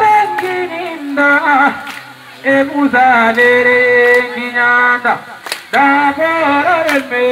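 A solo voice singing in long held, slightly wavering notes, in phrases of a second or two with short breaks between, with no instruments heard. A few sharp clicks cut in, one near the end.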